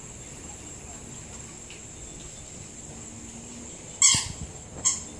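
Steady high-pitched drone of insects. Near the end it is broken by two loud, short calls, the second under a second after the first and briefer.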